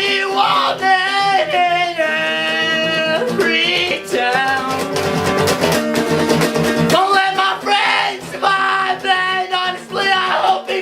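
A voice singing over a strummed acoustic guitar, with a long held note about two seconds in.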